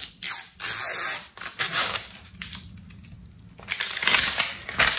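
Plastic packaging crinkling and tearing as a new hair product is unwrapped and opened, in two rough spells with a short lull between.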